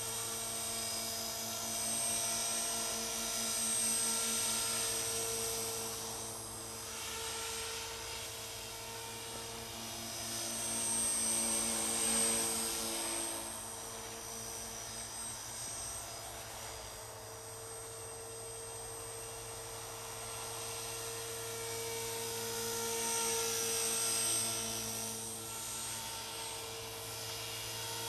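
Align T-Rex 450 Pro electric RC helicopter in flight: the steady high whine of its electric motor and drive gears with the buzz of the spinning rotor blades, swelling and fading in loudness several times as it flies about.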